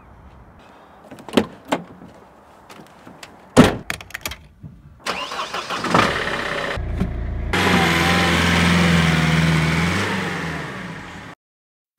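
A few sharp clunks, then a Mercedes Vito 109 CDI van's four-cylinder diesel engine starts and runs, its note swelling and then fading as the van pulls away. The sound cuts off abruptly near the end.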